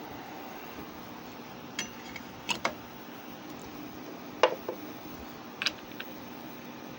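A handful of light clicks and clinks of hard objects being handled, the loudest about halfway through, over a steady low hum.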